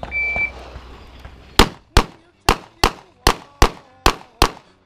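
A shot timer beeps once, then a pistol fires eight sharp shots in quick succession, about two to three a second, starting about a second and a half after the beep.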